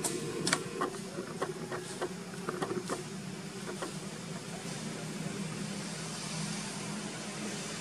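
A run of sharp clicks and snaps, about a dozen in the first four seconds, over a steady low hum. A high, even insect buzz builds through the second half.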